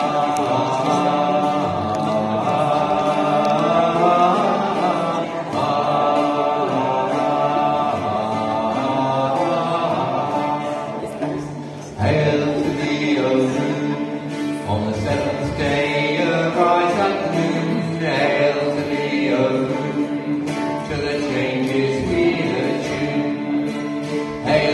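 Slow chant-like group singing led by men's voices, accompanied by a plucked string instrument, with a short break between phrases about twelve seconds in.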